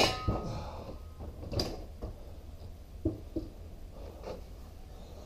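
Steel engine-stand parts and loose rusty square tubing being handled: one sharp metal clang at the start that rings briefly, then a few lighter knocks and clunks spread over the next few seconds.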